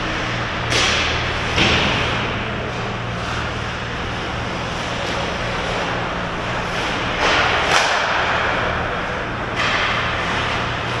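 Ice hockey skates carving and scraping the ice in three hissing bursts, each with a sharp knock. Under them runs a steady low hum.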